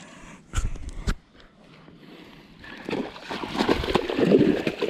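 Two sharp knocks about half a second and a second in, then water splashing and sloshing against the rocks at the river's edge from about three seconds in.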